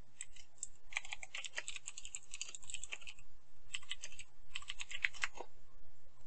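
Typing on a computer keyboard: a long run of quick keystrokes, then two shorter bursts, ending about five and a half seconds in.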